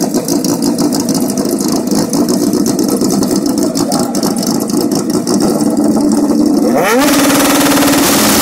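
Two drag-racing motorcycles held at revs on the starting line. About seven seconds in they launch, and the engine pitch sweeps sharply upward as they accelerate away at full throttle, much louder.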